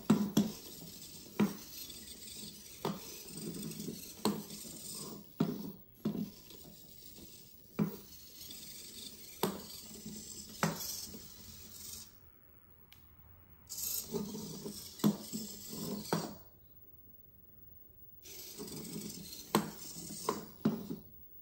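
Raspberry Pi quadruped spider robot walking and turning on a wooden floor: its hobby servo motors buzz and whine while its plastic legs tap and clatter on the boards. It moves in bursts, stopping twice for a couple of seconds.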